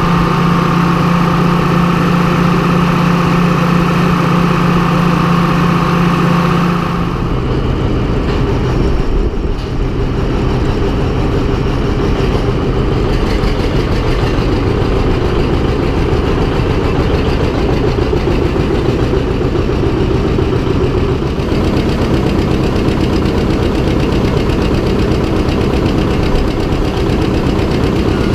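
Farm tractor engine running steadily. About seven seconds in its note changes abruptly, from a steady hum to a lower, rougher rumble.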